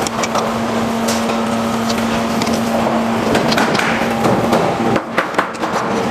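Scattered knocks and taps as a windshield glass and its rubber seal are pressed by hand into a truck cab's window frame, several in quick succession about five seconds in. A steady machine hum runs underneath and drops out about five seconds in.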